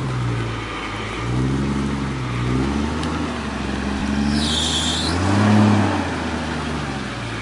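Off-road 4x4's engine revving in repeated surges, its pitch rising and falling, with the strongest rev about five and a half seconds in.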